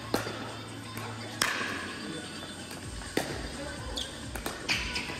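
Pickleball rally: the hard plastic ball pops sharply off paddles four times, roughly a second and a half apart, with music in the background.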